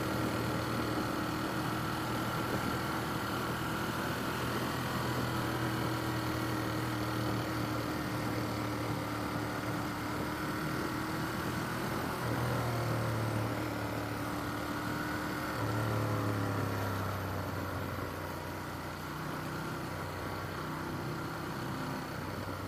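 Ducati Monster's V-twin engine running while riding at road speed, heard from the helmet with wind noise. Its note changes twice partway through, and it is a little quieter near the end.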